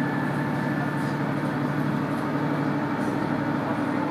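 KiHa 100 diesel railcar's engine running steadily, heard from inside the car, with a constant low hum over the train's running noise.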